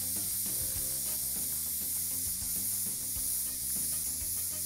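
A silicone spatula stirring thick eggplant béchamel with melting grated cheese in a frying pan over the heat. It makes a steady hiss with small scraping ticks as the spatula works through the purée.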